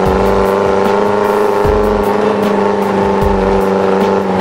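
Background music with a steady beat over the constant drone of an off-road jeep's engine.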